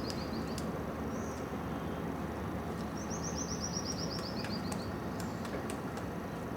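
A bird's high, rapid trill of short notes, about seven a second and falling slightly in pitch, heard once in full about three seconds in and lasting about two seconds, with the tail of another at the start. Scattered sharp ticks and a steady background hiss of the forest.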